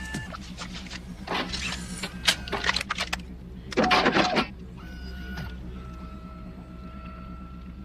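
RoboCop-style cyborg sound effects: servo motors whirring and sharp mechanical clicks in quick runs, with a denser, louder burst about four seconds in. A steady low electronic hum runs underneath, and held electronic tones sound at the start and again in the second half.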